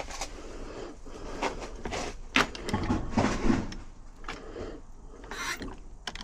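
Small metal lock parts of a UPVC door gearbox being handled, with a string of sharp clicks and knocks and some scraping.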